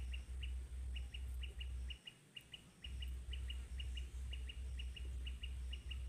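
Small birds chirping in short, high, repeated chirps, several a second, over a low hum that pulses about twice a second and drops out briefly about two seconds in.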